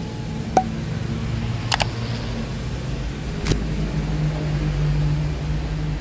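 A steady low mechanical hum, with a few sharp knocks: one about half a second in, a quick double knock near two seconds, and another about three and a half seconds in.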